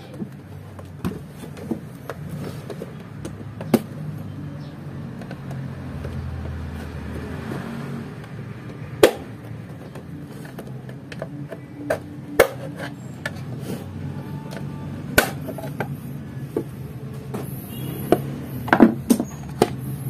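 Sharp plastic clicks and knocks as a stand mixer's plastic housing is pried apart by hand, coming in a quick cluster near the end as the side cover comes free. A low steady hum runs underneath.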